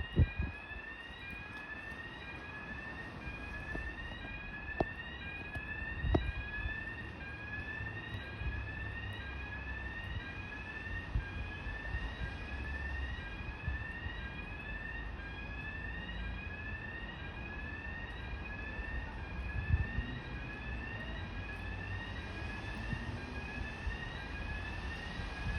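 Fire alarm sounder going off, a rising whooping sweep tone repeated about once a second, with a steady low rumble underneath.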